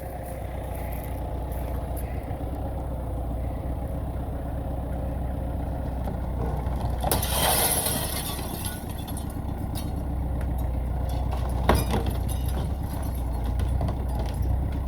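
Engine of a heavy demolition machine running steadily while tearing down a house, with a louder burst of crashing, splintering debris about seven seconds in and a sharp crack near twelve seconds.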